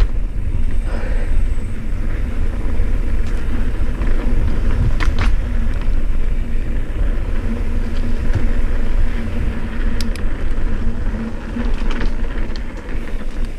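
Rurok Cordillera mountain bike riding down a dirt trail: a steady low rumble from the tyres on the dirt and the air rushing past the camera, with a few sharp clacks about five, ten and twelve seconds in.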